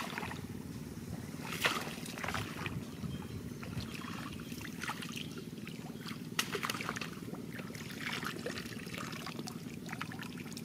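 Shallow muddy water splashing and sloshing as hands grope through it and legs wade, in short irregular splashes over a steady low background noise.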